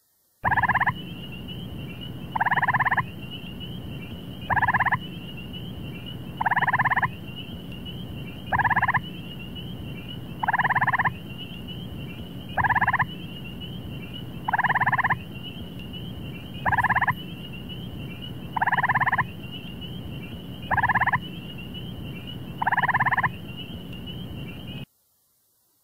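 Gray tree frog calling: a pulsed, musical trill repeated about every two seconds, twelve times, alternating longer and shorter trills, over a steady high buzz.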